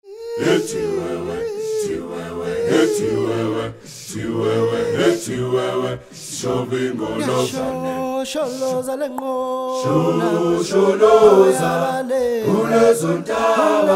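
Title music: voices singing a cappella, several parts together, with sharp percussive hits through it.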